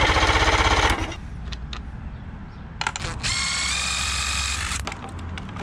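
Electric starter cranking a two-cylinder 55 hp outboard engine for about a second in rapid, even pulses, then stopping. After a pause, a power tool spins a socket extension for about a second and a half, its whine stepping up in pitch partway.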